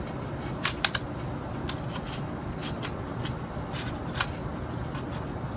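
Scattered sharp clicks and light rattles of an AR-15 rifle's metal and plastic parts being handled and turned, over a steady low background rumble.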